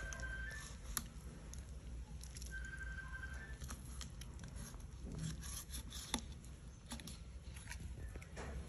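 Knife slicing and scraping through raw catfish flesh on a wooden chopping board: soft tearing and squishing with scattered light clicks as the blade works the fillet off the bone.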